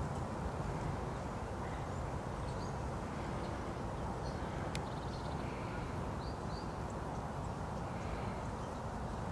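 Steady low outdoor rumble with a few faint, short bird chirps, two of them close together about six seconds in.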